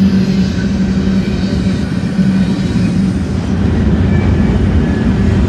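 BNSF double-stack container train's loaded well cars rolling past, a steady rumble of steel wheels on rail.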